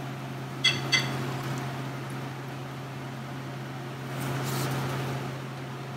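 A silicone spatula stirring vegetables in tomato sauce in a frying pan, with two quick knocks against the pan about a second in and a louder stretch of stirring around four seconds in. A steady low hum runs underneath.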